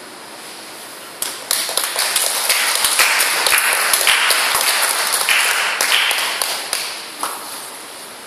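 Audience applauding: the clapping starts suddenly about a second in, holds for several seconds and dies away near the end.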